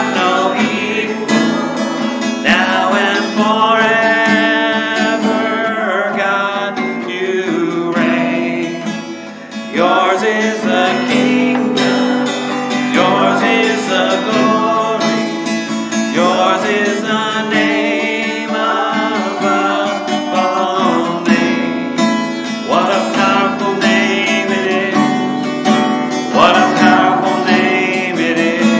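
Live worship song: an acoustic guitar strummed steadily under a man and a woman singing into microphones.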